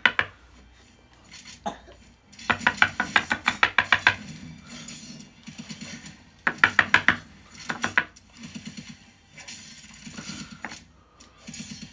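Small metal lock pins and springs rattling and clinking as they are shaken out of a deadbolt cylinder, in two bursts of rapid clicks with scattered single clinks between.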